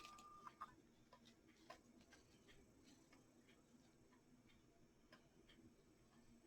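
Near silence broken by faint, irregular small clicks and taps as artificial flower stems are handled and pushed into place. A short steady tone ends about half a second in.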